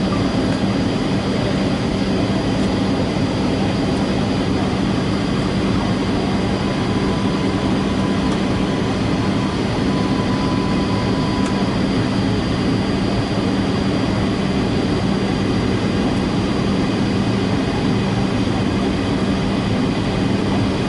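Steady cabin noise inside a Boeing 757-200 in flight: an even rush of engines and airflow with a constant low hum and a thin high tone.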